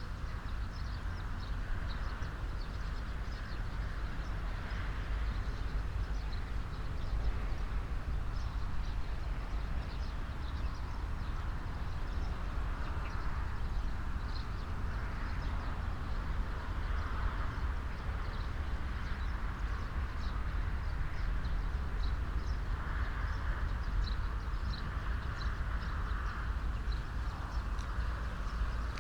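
Wind through the leaves of an old alder tree, a rustling hiss that swells and fades in gusts every few seconds over a steady low wind rumble on the microphone, with scattered faint high ticks.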